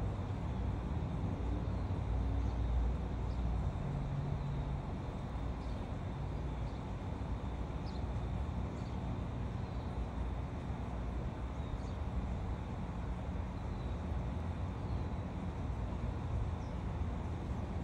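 Steady low outdoor rumble, like wind or distant traffic, with a few faint high chirps of birds scattered through it.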